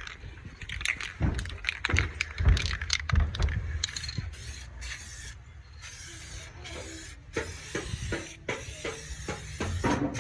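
Aerosol can of adhesion promoter spraying in a run of short hissing bursts, starting about four seconds in, after a few seconds of knocks and handling clatter.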